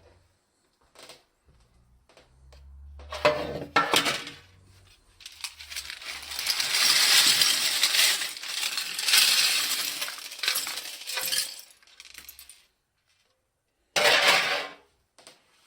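Loose plastic building-kit parts clattering and rattling as they are handled and sorted. There are short clatters early on, a long continuous spell of rattling from about five to twelve seconds in, and a sharp burst near the end.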